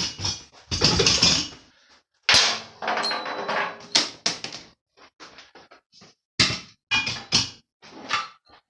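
Clanks and knocks of steel receiver-hitch mount parts being handled and fitted, a string of separate strikes with one sharp metal hit about two seconds in that rings briefly.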